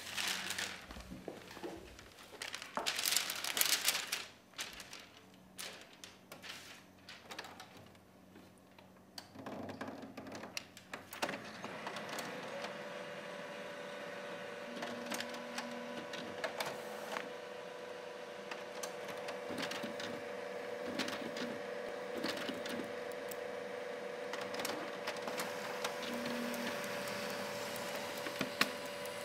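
Sheets of paper rustling, then fingers tapping on a laptop keyboard in a string of light clicks. A steady hum sets in about twelve seconds in and holds under the typing.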